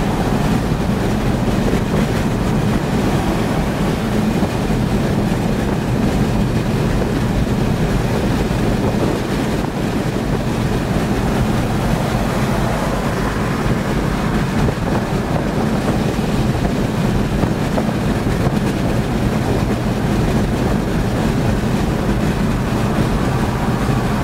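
1980s Toyota SR5 4x4 pickup cruising at highway speed, heard from inside the cab: a steady engine hum under road and wind noise.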